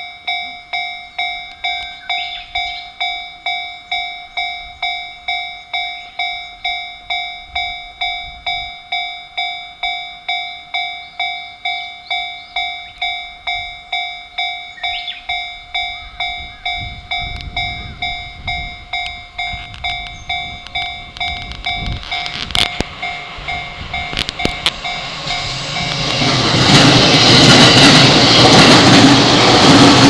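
Japanese level-crossing warning bell ringing, a quick repeating electronic dong about three strikes every two seconds. Near the end a JR East E231-series ten-car electric train comes up and runs close past, its wheel and running noise growing loud enough to drown the bell.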